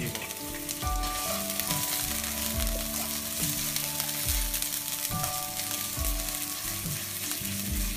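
Salmon and sliced onion sizzling in hot olive oil in a frying pan, turned over with tongs. Soft background music with held notes and a steady low beat plays underneath.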